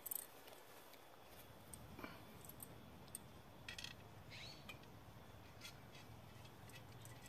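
Faint, near-quiet outdoor background with a few sharp clicks from pole sections being handled and their couplings screwed together by hand. A brief high chirp comes about four and a half seconds in.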